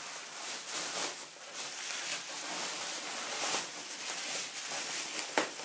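Plastic bubble wrap crinkling and rustling as it is pulled and unwrapped by hand, with one sharp snap near the end.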